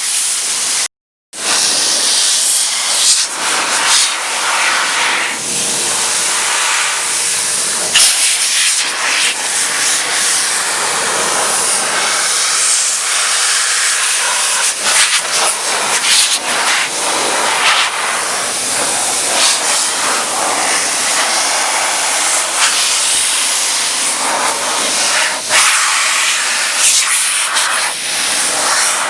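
BikeMaster motorcycle detailing blow dryer blowing water off a freshly washed motorcycle: a strong, steady rush of air that swells and dips as the nozzle moves over the bike. The sound cuts out for a moment about a second in.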